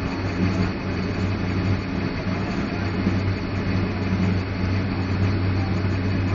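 Heavy diesel engine idling steadily, a constant low hum.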